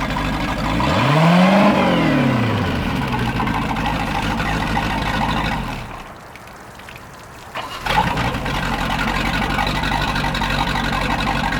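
Boat engine running on a freshly rebuilt carburettor, revved up and back down once early on, then running steadily. Around the middle it drops away for about two seconds before coming back with a sharp knock.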